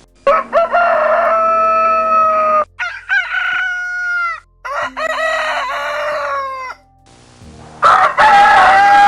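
Rooster crowing: four separate crows one after another with short breaks between them, each falling away at the end.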